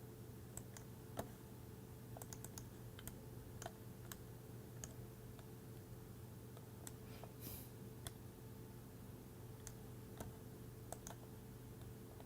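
Faint, irregular light clicks and taps of plastic parts being handled as a circuit board is fitted into a 3D-printed enclosure, over a steady low hum.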